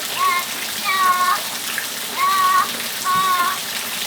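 A parrot giving four short, pitched, voice-like calls, evenly spaced, over steady rain falling.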